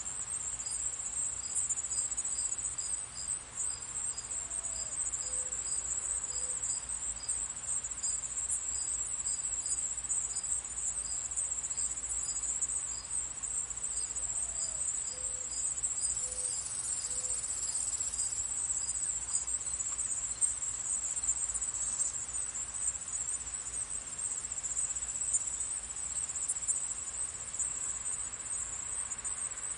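Summer crickets trilling in a steady, high, shrill chorus, with a quicker run of evenly spaced chirps that stops about halfway through. Faint low bird calls come twice, about 5 seconds in and again about 15 seconds in.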